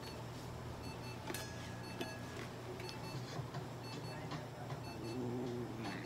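Repeated short electronic beeps from clinic equipment, evenly spaced, over a steady low machine hum.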